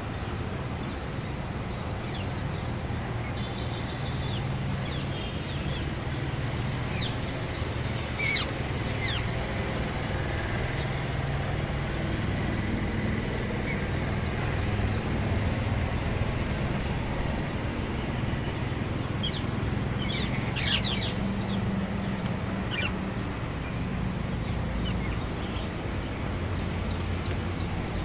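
Rose-ringed parakeets giving a few short, harsh screeches: one about eight seconds in and a cluster around twenty seconds in. A steady low city traffic rumble runs underneath.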